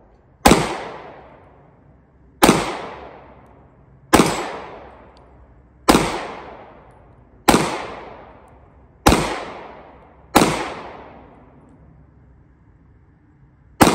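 9mm pistol firing eight single shots at a slow, steady pace, about one every one and a half to two seconds, each crack followed by a long echo dying away over a second or more; the last shot comes after a longer pause near the end.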